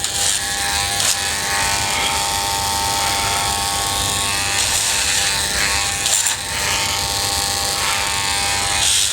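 Wahl electric hair clippers, fitted with a clipper guide, buzzing steadily while cutting through hair on the side of the head.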